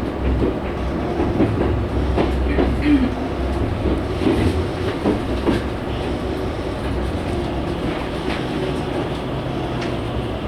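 Toyo Rapid Railway 2000 series electric train running, heard from inside the car: a steady low rumble with wheels clicking over the rail joints, the clicks thinning out after about six seconds.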